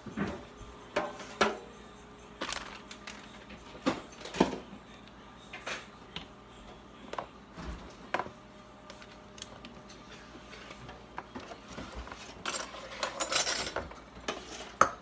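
Kitchen clatter: scattered knocks and clinks of bottles and dishes being picked up and set down on a countertop. Near the end comes a short burst of crinkling as a disposable aluminium foil pan is handled.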